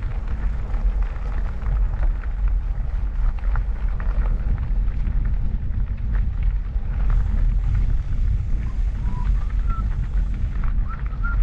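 Steady low rumble of wind and riding noise on a moving fat bike's microphone, buffeting throughout. A few faint, short, high chirps come near the end.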